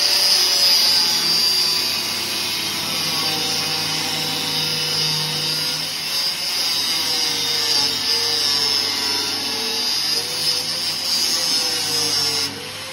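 A power tool running under load, cutting through a metal padlock, its motor pitch wavering slightly as it bites. It stops abruptly near the end.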